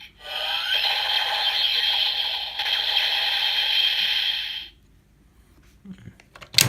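Electronic sound effect from a Kamen Rider Build transformation toy, a busy high-pitched jingle playing for about four and a half seconds and then cutting off. Near the end come a few plastic handling noises and a sharp click.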